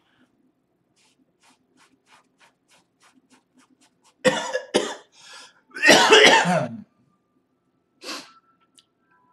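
A man coughing: a fit of harsh coughs starting about four seconds in, the longest and loudest just past the middle, and one more short cough near the end. Faint quick ticks, getting faster, come before the fit.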